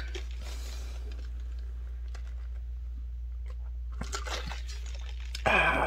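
A man drinking coffee from a glass: faint sips and swallows with a few light clicks, over a steady low hum. Near the end comes a short vocal sound.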